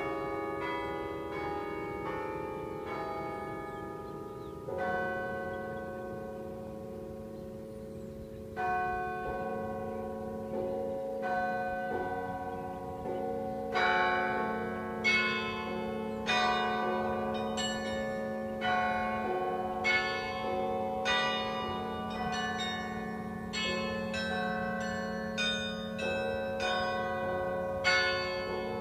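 Carillon bells played as a melody, each struck note ringing on and overlapping the next. The notes are few and widely spaced at first, then come in a quicker run from about halfway.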